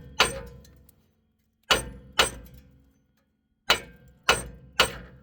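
Hammer striking the worn-out rear hub assembly of a 2015 Town and Country to tap it loose from the knuckle: six sharp metal-on-metal blows, each with a brief ringing, coming in twos and threes with pauses between.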